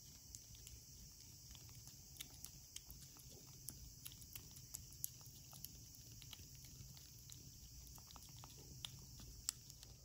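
Kitten licking a paste treat from a squeeze tube: faint, irregular wet clicks of the tongue, a few a second, over near silence.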